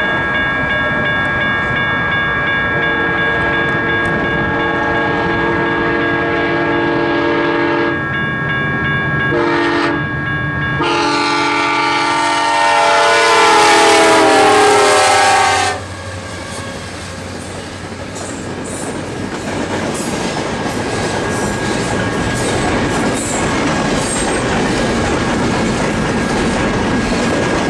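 Union Pacific SD70ACe diesel locomotive sounding its air horn for a grade crossing: a series of blasts, then a louder long blast that drops in pitch as the locomotive passes and cuts off suddenly about 16 seconds in. After it, the double-stack intermodal cars roll by fast, with a steady clickety-clack from the wheels over the rail joints.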